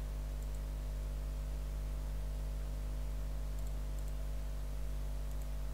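Steady low electrical hum with a few faint clicks, about half a second in and again near four seconds.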